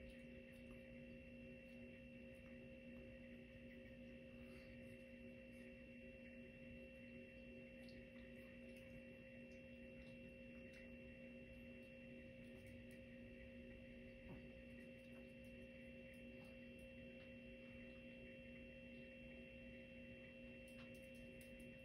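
Near silence: room tone with a faint, steady hum made of several tones, and a few very faint ticks.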